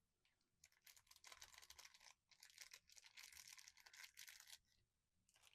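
Blind-box packaging crinkling and tearing as it is opened by hand: faint, crackly rustling in two stretches with a short pause between them.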